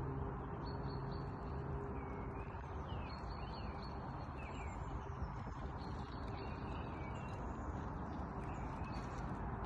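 Small songbirds chirping, with scattered short calls and quick rising notes, over a steady background rush.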